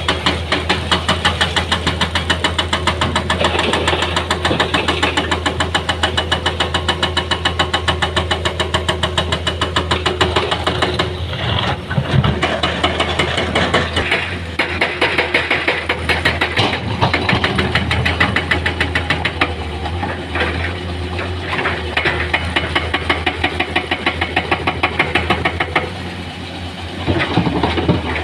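Heavy diesel engine of construction machinery running with a steady, rhythmic pulse of about three beats a second. It eases off briefly near the end, then picks up again.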